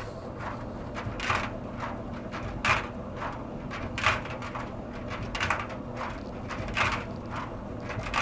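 Clothes dryer running: a steady hum with a sharp noise that comes round about every 1.4 seconds, once per drum turn, and fainter ones in between. The dryer is clogged with lint, and its idler pulley and belt are burned up and need replacing.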